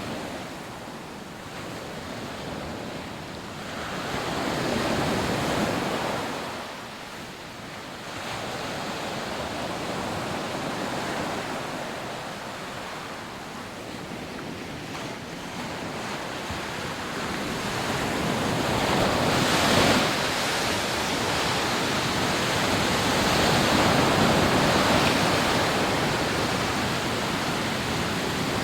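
Rough surf breaking and washing up on a sandy beach, the rush swelling and falling back every several seconds, with a sharper crash about two-thirds of the way through.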